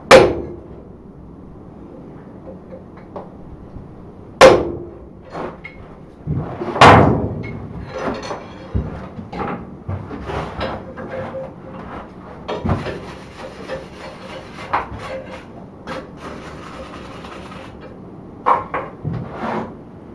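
Blacksmith's hammer striking a hot twisted steel basket handle on an anvil: three heavy blows a few seconds apart, then lighter taps, scraping and metal clatter as the piece is turned and adjusted.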